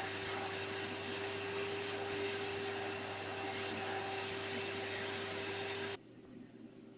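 Household vacuum cleaner running with a steady roar and a constant hum, used to suck on someone's lips; it cuts off suddenly about six seconds in.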